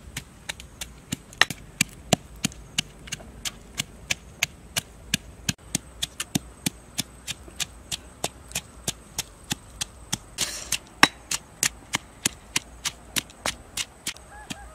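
Pestle pounding red chillies in a stone mortar: steady, sharp knocks about three a second.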